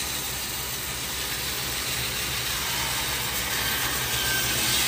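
Band saw running and cutting through a rough resinous pine burl: a steady motor hum under the hiss of the blade in the wood, growing a little louder toward the end.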